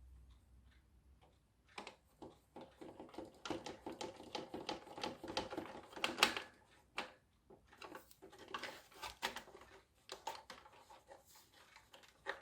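Small plastic parts of a radio-control car's steering being handled and fitted: runs of rapid light clicks and taps, loudest about six seconds in, with a pause near the start and another around seven seconds.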